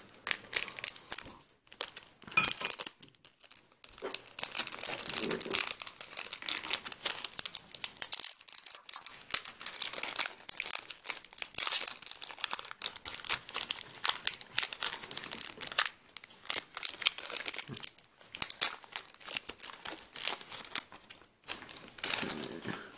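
Foil booster-pack wrapper of Yu-Gi-Oh trading cards being crinkled and torn open by hand: a long irregular run of crackling with brief pauses.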